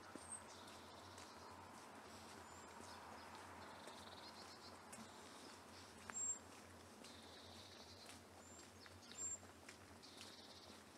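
Quiet outdoor ambience with a few short, high bird chirps scattered through it, the two loudest about six and nine seconds in.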